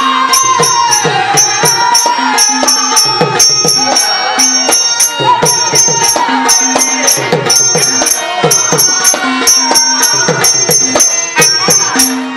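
Live folk-theatre music: a stage performer singing a high, wavering melodic line, accompanied by a hand drum and bright, ringing metallic cymbal strokes in a steady, quick rhythm.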